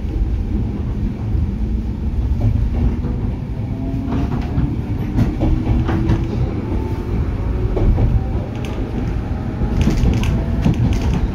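On-board running sound of a JR 103 series electric train: a steady low rumble from the wheels and MT55A traction motors, with a faint whine that rises slowly in pitch and scattered clicks from the rails.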